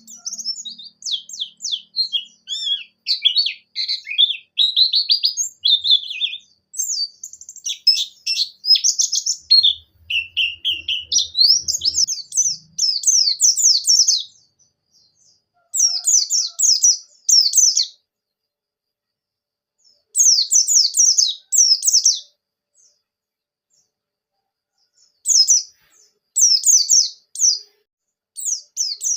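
White-eye (pleci) singing a rapid, high twittering song of quick falling notes, in bursts of a few seconds with short silent pauses between them.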